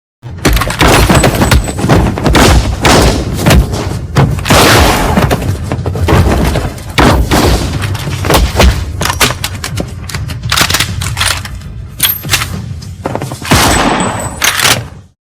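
Tokusatsu-style gun sound effects: a dense barrage of shots, thuds and booming blast impacts, nearly continuous, stopping suddenly near the end.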